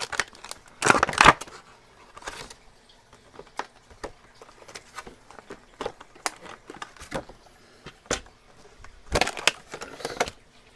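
Packaging of a new padlock being opened by hand: crinkling and crackling in short bursts with scattered clicks and taps. The loudest bursts come about a second in and again near the end.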